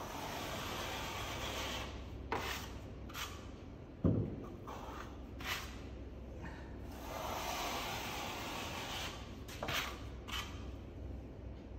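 Steel plastering trowel scraping wet plaster along a taper edge plasterboard joint, pressed against the board to fill the taper out. Long scraping strokes are broken by several sharp clicks and one louder knock about four seconds in.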